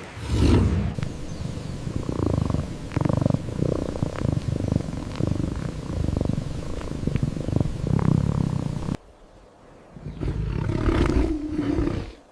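A large wild animal's low, rough growling, in two stretches broken by a short pause about nine seconds in.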